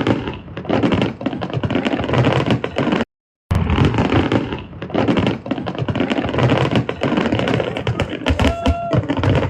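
Fireworks display going off: a dense run of crackling pops and deeper bangs, cutting out completely for a moment about three seconds in. A short high held tone sounds near the end.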